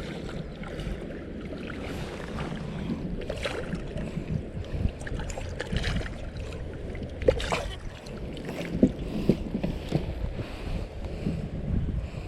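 Steady low rumbling noise, with several short knocks and clicks scattered through it.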